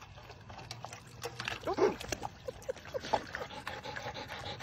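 Dogs lapping water from a metal water bowl: a quick run of wet slurping clicks. A few short vocal sounds break in, the loudest about two seconds in.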